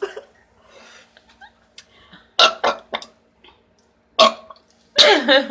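A woman belching several times after gulping carbonated diet cola: a short burp about two and a half seconds in with a couple of smaller ones after it, another short one about four seconds in, and a longer burp with a wavering pitch near the end.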